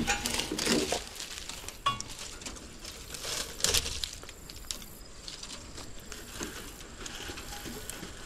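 Dry soybean plant material crunching and rustling in irregular bursts, with a few sharp clicks, as crop caught on the combine reel is pulled free by hand.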